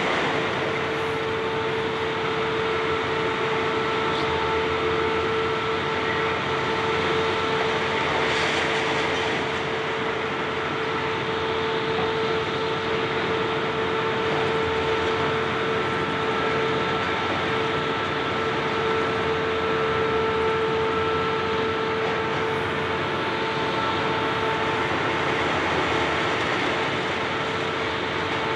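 Diesel engines and hydraulics of high-reach demolition excavators running steadily: a constant whine over a broad rumble.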